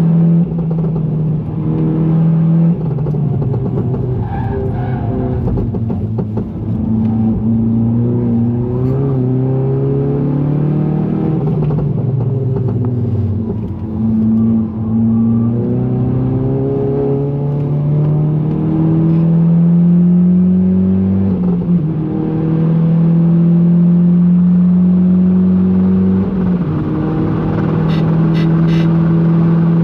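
A front-wheel-drive GTI's engine under hard acceleration, its pitch climbing through the revs and dropping abruptly at each gear change, several times over.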